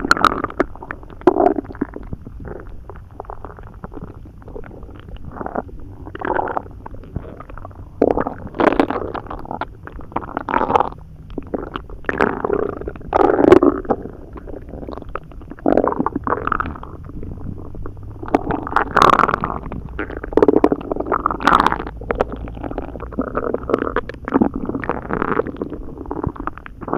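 A person's stomach rumbling and gurgling in an irregular run of squelches, some much louder than others, with the loudest about thirteen seconds in. The stomach is churning a load of barely chewed hot dogs and a lot of water.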